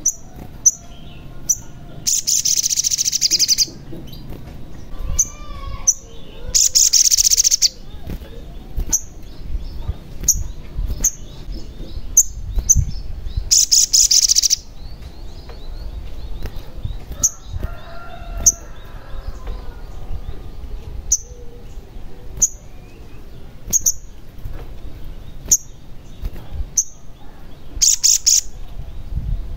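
Male olive-backed sunbird (sogon) singing: a string of short, sharp, high chirps about a second apart, broken four times by loud, rapid buzzing trills about a second long.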